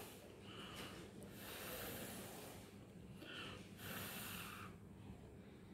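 A man breathing close to the microphone: a few soft, hissy breaths in and out through the nose, the strongest near the end.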